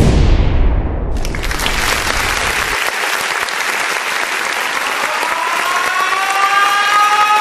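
A crowd applauding and cheering, opening with a sudden loud low boom that rings on for a couple of seconds. Near the end a whistle comes in, its pitch slowly rising.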